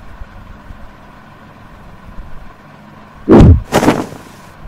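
Two quick, loud whooshing cartoon sound effects, one right after the other, about three and a half seconds in, over a faint steady hum.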